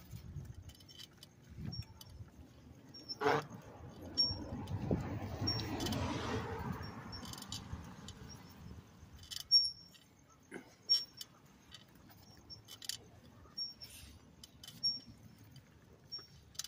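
Bicycle rolling along a paved street: scattered clicks and rattles from the bike, with a swell of road and wind noise around the middle.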